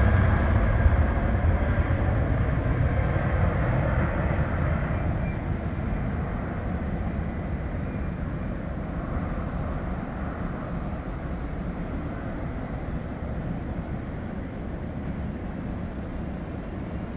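Four engines of a Boeing 747-400 freighter at takeoff thrust during the takeoff roll, lift-off and climb-out. The low rumbling roar fades steadily as the jet climbs away.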